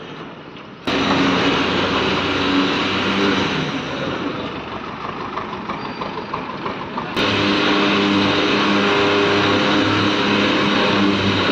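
A motor vehicle engine running with a steady hum. The sound jumps abruptly louder about a second in and again about seven seconds in.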